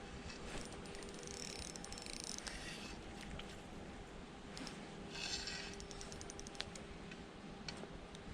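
Faint handling noises: short bursts of rustling and small clicks, over a low steady hum.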